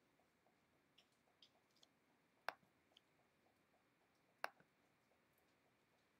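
Two sharp computer mouse clicks about two seconds apart, with a few fainter clicks before them, against near silence.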